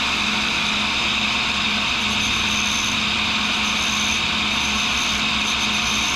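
1942 Cincinnati No. 2 tool and cutter grinder running steadily, its cup grinding wheel spinning with a hiss and a steady low hum. An abrasive dressing stick is touched to the wheel face to clean it, and a high whine comes and goes from about two seconds in.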